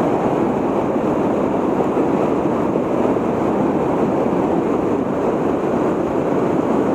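Water pouring over a river dam into the churning whitewater below, a steady rushing with no change in level.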